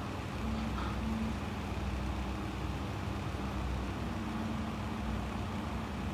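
A steady low rumble with a faint, constant hum over it, and no distinct events.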